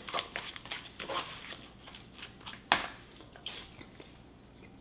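Faint, scattered clicks and crunches of chopped salad with hummus being stirred in a plastic container and eaten, with one sharper click a little under three seconds in.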